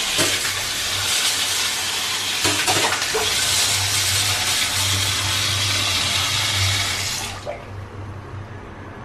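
Water gushing at full flow from a newly fitted chrome wall tap, a steady rushing stream that is shut off about seven and a half seconds in.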